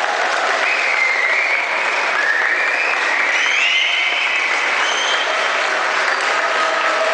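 Audience applauding at the end of a dance performance, with a few high cheers rising over the clapping in the first half.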